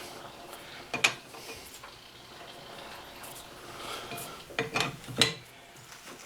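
Sharp metallic clinks and knocks of tools against lathe parts, each with a short ring: one about a second in, then three close together near the end.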